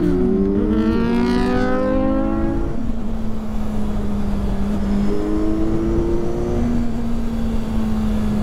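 Motorcycle engines under way. One revs up with its pitch rising and falling back at the gear changes over the first three seconds, then a steady engine drone holds, with a shorter rise again about five seconds in. Wind rush and road rumble on the helmet microphone run underneath.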